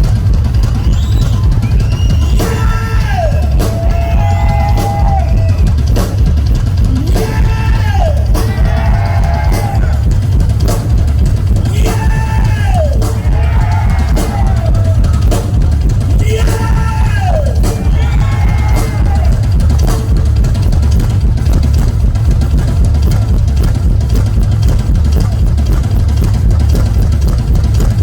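Rock drum kit played in a fast, dense solo driven by heavy bass drum. A pitched sliding sound that falls and then levels off recurs about every five seconds over it.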